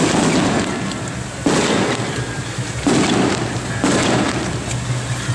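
Heavy rain hissing, with loud crackling surges that start abruptly about every one to one and a half seconds.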